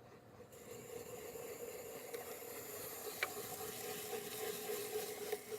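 Hand-cranked apple peeler-corer being turned, its blade shaving the peel off an apple with a steady hissing scrape, with one small click about three seconds in.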